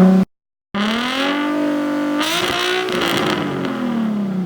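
Nissan 350Z's 3.5-litre V6 running through a freshly installed Tomei aftermarket exhaust, loud. After a brief dropout about half a second in, the engine revs up, holds high with a harsh rasp in the middle, then winds back down toward idle.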